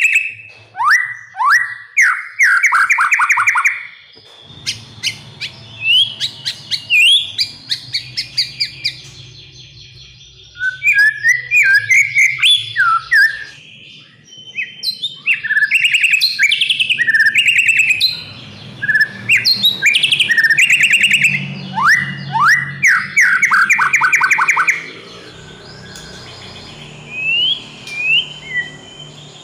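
Male white-rumped shama (murai batu) in full, loud song: a varied run of rapid trills and sweeping whistled phrases broken by short pauses, ending in a few clear rising whistles.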